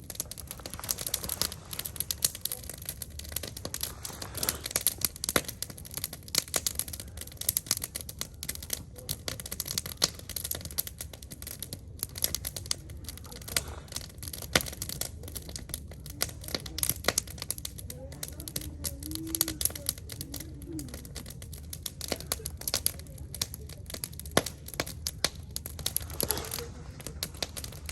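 Wood fire crackling, with dense irregular snaps and pops throughout.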